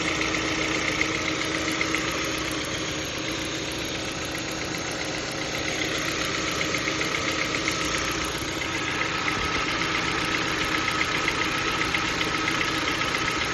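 Kia Ceed JD's 1.6-litre G4FG four-cylinder petrol engine running steadily with a fast, even knocking: a knock in the engine.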